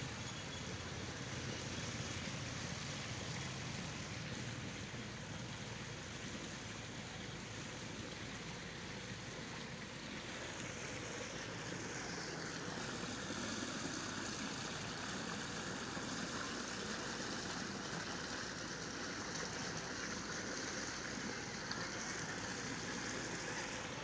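Steady rush of water flowing along a village canal channel. About eleven seconds in, a faint high whine slides down in pitch and then holds steady under it.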